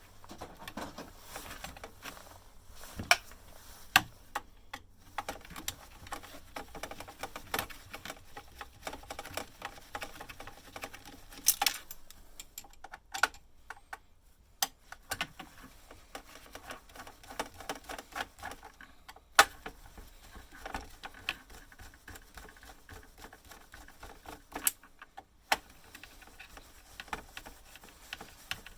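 Irregular small clicks, taps and light clatter of metal and plastic parts and hand tools being handled while a bread maker is dismantled, with a few sharper knocks standing out.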